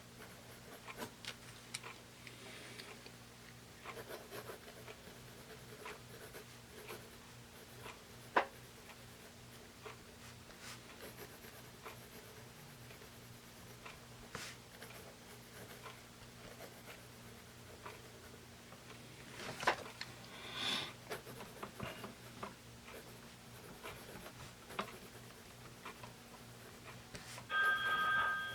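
Pentel Graph Gear 500 mechanical pencil with 0.7 mm lead writing on paper: faint scratching of the lead with occasional small taps. Near the end a phone starts ringing with steady electronic tones.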